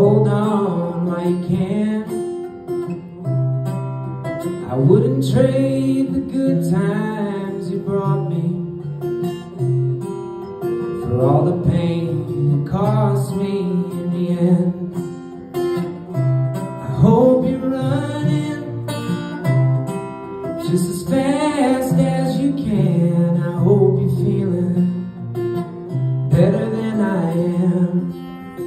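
Live solo acoustic guitar with a man singing over it, in phrases a few seconds long.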